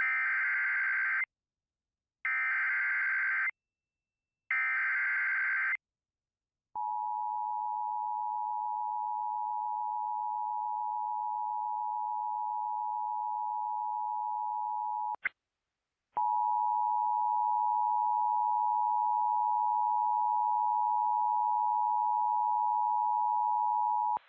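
Emergency Alert System header from a Sage EAS Endec: three short bursts of SAME digital data tones, each about a second long, encoding a flash flood warning. The steady two-tone EAS attention signal follows for about eight seconds, then a click and a second's break, then the attention signal again.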